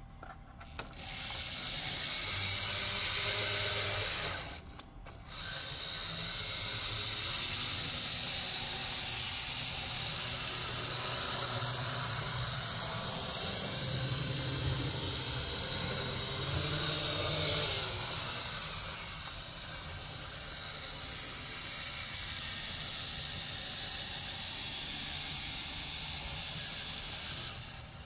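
Z-scale model F7 diesel locomotive running on the track: its tiny motor and wheels make a steady whirring hiss. The sound cuts out briefly about four and a half seconds in, then runs on, a little quieter in the last third, and dies away near the end.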